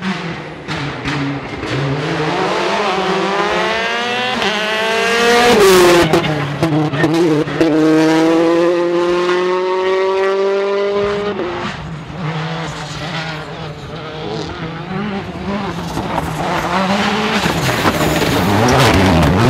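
Rally cars' turbocharged 1.6-litre four-cylinder engines at full throttle, revving up through the gears. Each rise in pitch breaks off at a gear change, and sharp cracks and clicks are scattered through.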